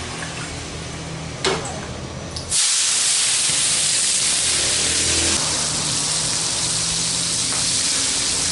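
Sliced tomatoes, chillies, shallots and garlic hitting hot oil in a frying pan on a gas burner: after a single click, a loud sizzle starts suddenly about two and a half seconds in and carries on steadily as the oil flares up and the vegetables are stirred.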